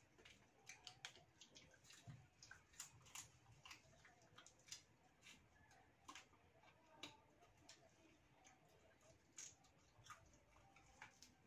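Faint, irregular clicks and crackles of fried mantis shrimp shells being cracked, peeled and chewed by hand.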